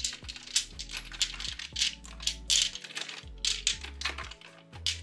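Small bottles of body oil and perfume clinking and rattling against each other as a makeup bag is rummaged through, in many quick irregular clinks.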